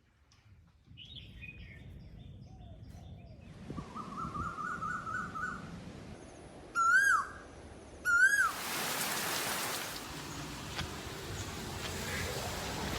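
Forest birds calling: a quick run of repeated notes, then two loud calls that rise and fall in pitch, a little over a second apart. A steady hiss of noise comes in just after the second call.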